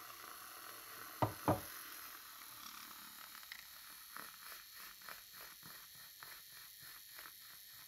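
Handheld battery milk frother whisking coffee cream in a glass: two clicks a little over a second in, then a faint rhythmic swishing about three times a second as the cream froths up.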